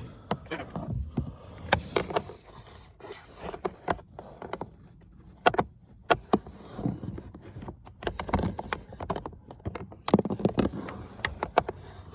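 Irregular plastic clicks, knocks and scraping as a cabin air filter and its housing are handled and pushed toward a groove where they won't yet go in and lock.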